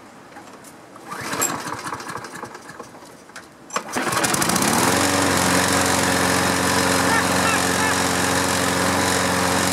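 A Toro Recycler walk-behind mower's engine restarts while hot: it catches about four seconds in, speeds up over about a second, then runs steadily.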